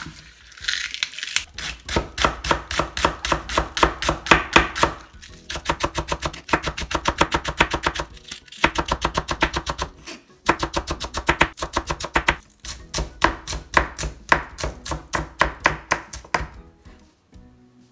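Chef's knife thinly slicing a scallion on a wooden cutting board: fast, even strokes of the blade against the board, about eight a second, in runs with short pauses, stopping shortly before the end.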